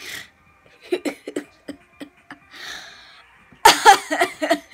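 A child laughing hard in short breathy bursts, with a loud cough-like burst about three and a half seconds in.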